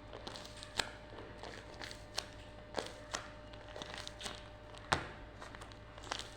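Paper being handled and crinkled: scattered soft crackles and taps, with one sharper tap about five seconds in.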